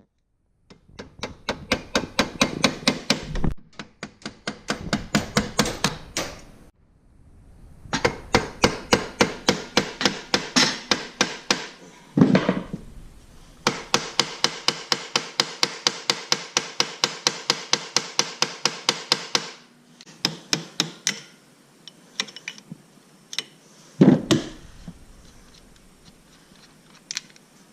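Quick, light hammer taps on a chisel against metal, about five a second. They come in several runs a few seconds long with short pauses between, then thin out to a few scattered taps. This is the kind of gentle tapping used to back out a stripped screw.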